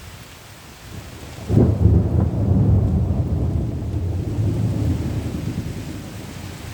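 Thunderclap breaking about a second and a half in, then a long low rumble that slowly fades, over steady rain.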